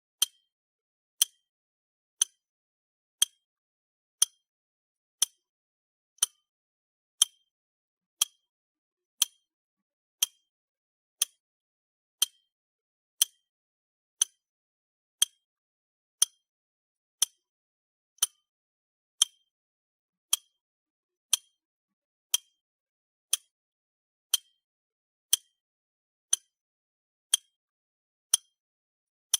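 Clock ticking steadily, one short, sharp tick each second, every tick alike.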